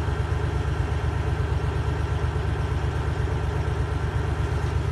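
Semi truck's Cummins ISX diesel engine running steadily, a low, evenly throbbing drone.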